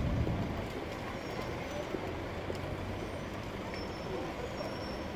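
Road traffic: a steady low rumble of idling vehicle engines, without any sharp or sudden sounds.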